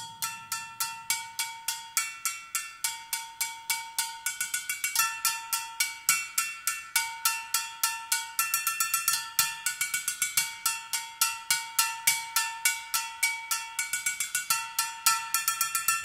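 Upturned metal bowls struck in a fast, even pattern of about four strokes a second, each ringing with a clear metallic pitch. The strokes get quicker near the end.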